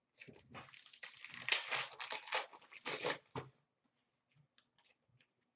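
A 2017-18 Upper Deck Series 1 hockey card pack being torn open, its wrapper tearing and crinkling for about three and a half seconds, followed by a few faint ticks.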